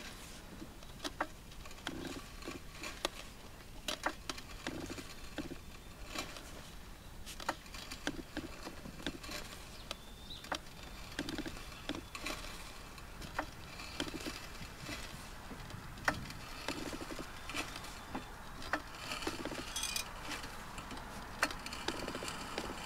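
Pittsburgh 3-ton low-profile hydraulic floor jack being pumped by its long handle under the weight of a large rock, with a short click about once a second and softer knocks with the strokes.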